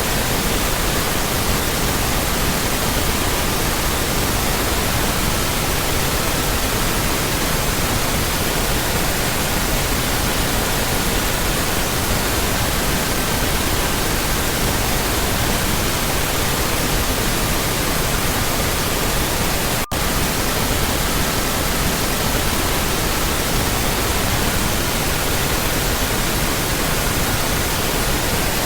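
Steady synthetic pink noise with faint pure tones layered in at 1200, 1320, 1440 and 1555 Hz, the audible tone changing every few seconds. A split-second dropout about twenty seconds in.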